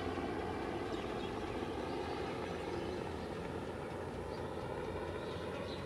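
Steady, unbroken drone of a distant engine over outdoor background noise.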